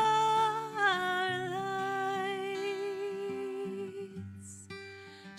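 A woman sings one long held note with a slight vibrato over acoustic guitar chords. The note steps down a little about a second and a half in. Near the end she takes a quick breath and starts the next sung word.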